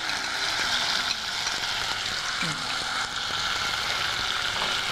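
Marinated chicken pieces sizzling in hot oil with whole spices in a pot, just tipped in to sauté: a steady frying hiss.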